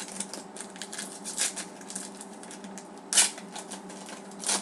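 Trading cards being handled and flipped through: a run of small clicks and rustles, with a louder snap about three seconds in and another near the end, over a faint steady hum.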